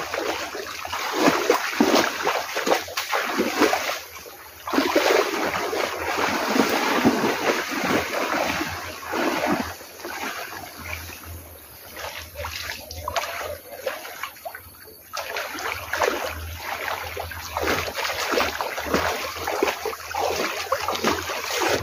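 Water splashing and sloshing as a person wades through knee-deep floodwater, in a continuous irregular run of surges. It goes briefly quieter about four seconds in and again around fifteen seconds.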